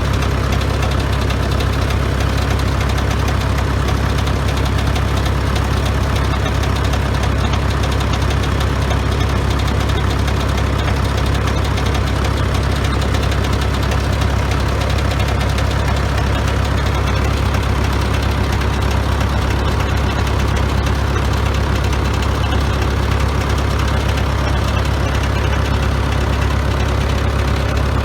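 1953 Farmall Super MD tractor's four-cylinder diesel engine running steadily, a fast, even train of firing pulses that holds constant throughout.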